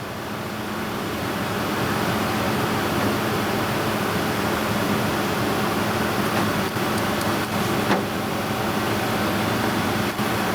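Steady rushing air from a fan or extraction blower, building up over the first couple of seconds and then running evenly, with a low hum under it.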